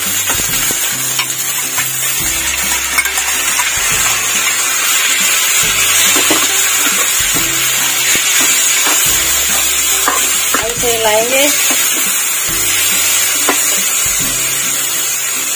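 Onions, whole spices, ginger, garlic and chillies sizzling steadily in hot oil in a pan while being sautéed for a masala. A spatula stirs through them, with scattered short scrapes and clicks against the pan.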